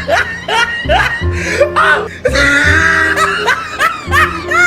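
Background music with deep, recurring bass notes, with laughter over it.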